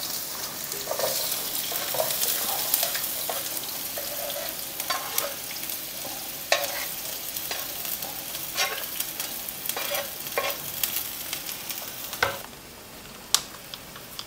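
Chopped red onions sizzling in hot oil in a frying pan on a gas hob, with scattered scrapes and taps as more onions are tipped in from a wooden board and stirred. The sizzle drops to a fainter hiss about twelve seconds in.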